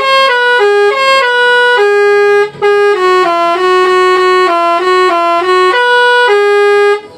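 Basuri telolet horn on a bus playing a tune: a loud run of stepped notes, each held a fraction of a second, with a short break about two and a half seconds in, cutting off abruptly near the end.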